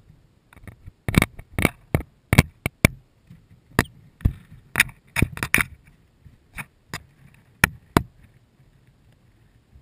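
Chicks' beaks pecking at the camera's housing: a run of sharp, irregular taps, bunched in quick flurries during the first six seconds and sparser after that.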